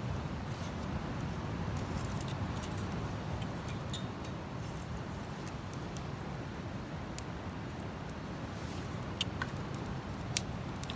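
Campfire burning: a steady low rush with a few scattered sharp crackles and pops from the wood.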